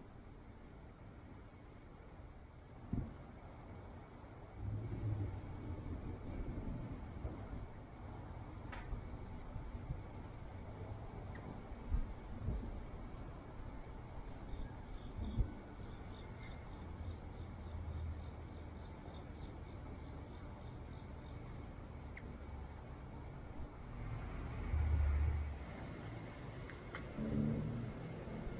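Backyard ambience: high, evenly repeated chirping runs throughout, with a few soft thumps and low rumbles, the strongest rumble near the end.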